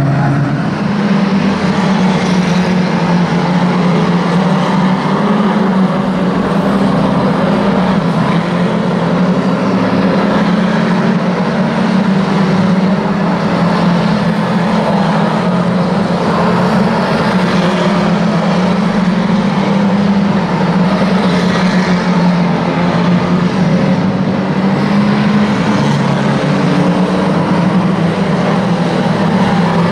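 Engines of a pack of banger race cars running together round the track, many motors merging into one loud, steady drone.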